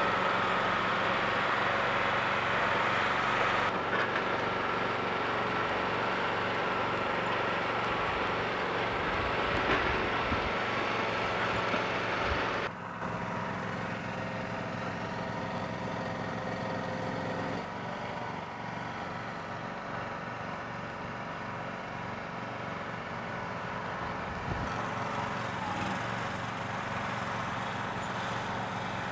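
Small gasoline engine of a walk-behind motorized trailer dolly running steadily under load as it moves a tiny house on its trailer. A high whine runs with it at first and stops about 13 seconds in, after which it runs a little quieter.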